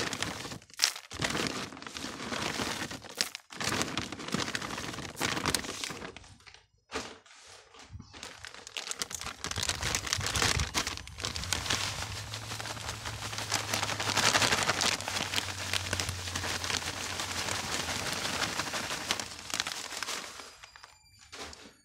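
Plastic bag crinkling and rustling as handfuls of expanded clay pebbles and perlite are scooped out and poured into potting mix, with small crunches and clicks of the grains, in irregular spurts with short pauses.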